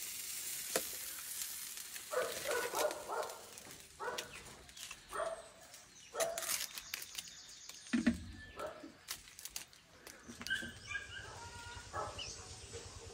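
Domestic animals calling: short pitched cries coming in several separate groups, over a light steady hiss.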